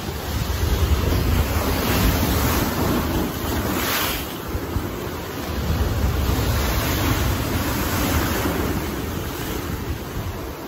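Heavy surf breaking on the shore, with strong wind buffeting the microphone. The noise swells and eases as the waves come in.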